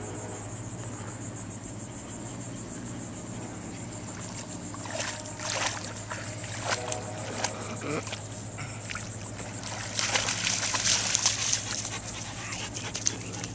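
A standard poodle wading and splashing through shallow river water, with irregular splashes from about five seconds in and the loudest splashing around ten seconds in, over a steady high chirring of insects.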